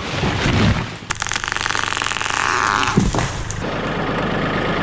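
A Stihl two-stroke chainsaw runs at high revs for about two and a half seconds, starting sharply about a second in. Before it there are low, heavy crashing sounds, and a sharp crack comes near the end of the saw's run, as felled trees come down.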